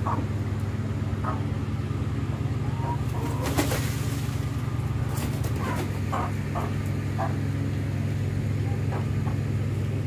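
A steady low hum, with short high bird calls dotted through it, one of them gliding, and a brief rattle of clicks about three and a half seconds in.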